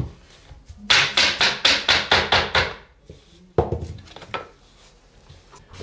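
Laminate floor boards being knocked into place with a hammer: a quick run of about nine knocks, about five a second, followed by two separate knocks.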